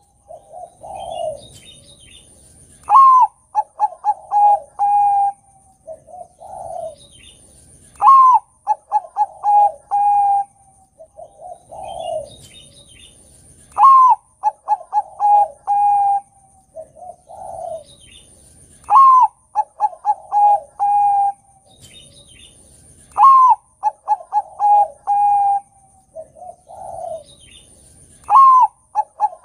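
Zebra dove of the Bangkok song strain (perkutut bangkok) singing its loud cooing song six times, about every five seconds. Each phrase opens with a soft low coo, then a rising note, a quick run of short coos and a longer closing coo.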